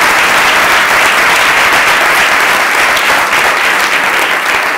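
Audience applauding, the clapping easing off slightly near the end.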